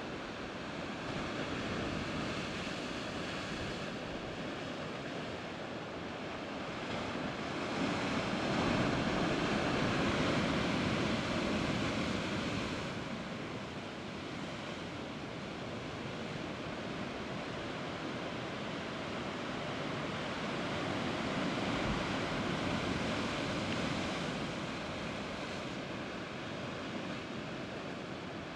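Sea surf washing against a rocky shore: a steady rushing noise that swells louder twice, about ten seconds in and again a little past twenty seconds.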